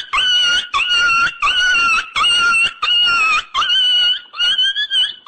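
A comedy sound effect of high-pitched squealing cries, about eight in a row, each under a second long. Each one opens with a quick dip in pitch and then holds steady.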